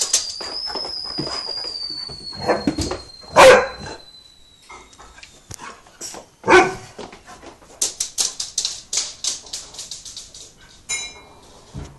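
Airedale terrier, excited after a bath, barking in short loud bursts about three times, amid a quick patter of clicks and scuffles as it dashes around.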